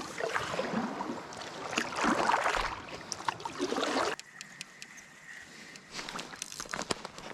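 Kayak moving through a shallow creek: water splashing and sloshing around the paddle and hull, with scattered clicks and knocks. About four seconds in it drops suddenly to quieter water sounds.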